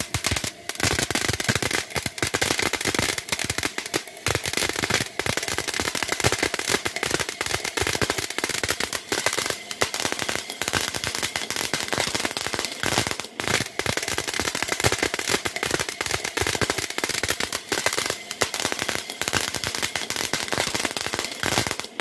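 Tin-can-shaped ground fountain firework (flowerpot) burning: a steady hiss of spraying sparks thick with rapid crackling pops, starting about half a second in.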